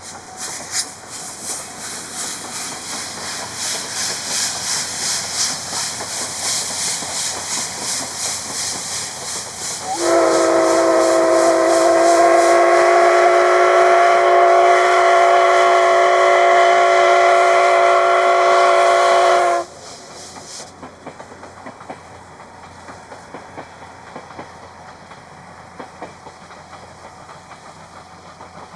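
C57 steam locomotive working hard, with quick, even exhaust chuffs and steam hiss that grow louder as it approaches. About ten seconds in, its steam whistle sounds one long chord-like blast of several tones, held for about ten seconds and then cut off sharply. After that comes a quieter stretch of irregular clicking and rumble.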